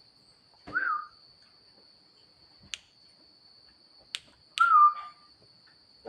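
Javan myna giving a short rising-and-falling whistled note, then sharp single clicks, and near the end a click followed by a falling whistle.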